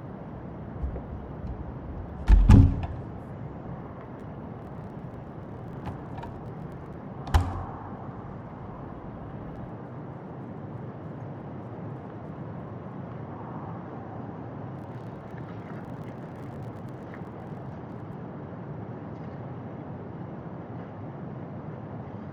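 Steady low rumbling background noise with a loud heavy thud about two and a half seconds in and a sharper knock about seven seconds in.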